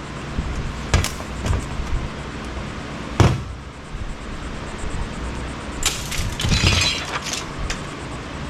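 Clanks and knocks of metal and plastic parts being pried off and dropped while scrap electronics are taken apart by hand. There is a sharp knock about a second in and a louder one about three seconds in, then a rattling clatter of several hits near the end.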